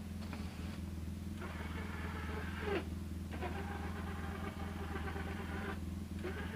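Side-by-side UTV engine idling steadily while the American Eagle Power Turn's motor swings the plow blade from side to side. The motor whines in several runs with short pauses between them as the blade changes direction.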